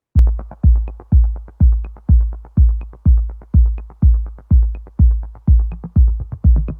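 Electronic dance music intro: a steady kick drum about twice a second with light ticks between the beats.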